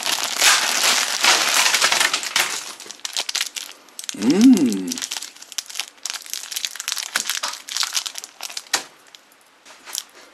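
Candy wrappers and plastic packaging crinkling as they are handled, heavily for the first few seconds, then in scattered rustles and clicks. A brief pitched sound with sliding tones is heard about halfway through.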